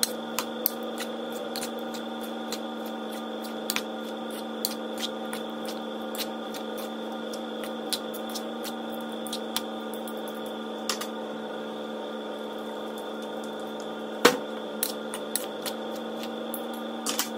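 Metal fork clicking and scraping against a bowl as chopped pork and onions are tossed together, with irregular light clicks and one louder knock about 14 seconds in. A steady electric hum runs underneath.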